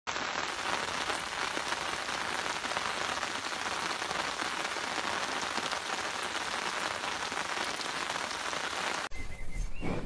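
Steady rain pattering, an even hiss flecked with fine drops, that cuts off abruptly about nine seconds in.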